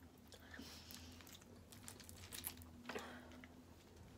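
Faint, scattered cracks and crackles of snow crab leg shell being broken apart by hand to get at the meat.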